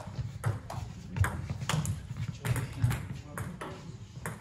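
Table tennis ball clicking back and forth off the bats and table in a rally, about two sharp knocks a second, stopping near the end as the point finishes.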